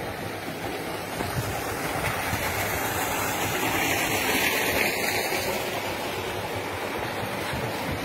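Steady rushing, splashing water from paddlewheel aerators churning a fish pond, swelling a little around the middle.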